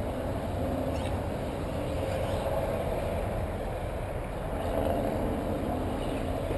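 Steady wind noise buffeting the camera microphone.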